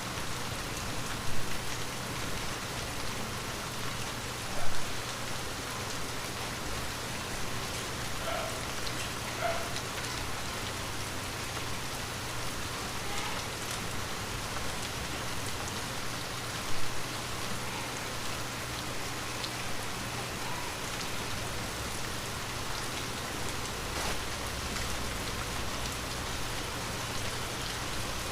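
Light rain falling steadily, an even patter, with three sudden louder taps of single drops: about a second in, about five seconds in, and near seventeen seconds.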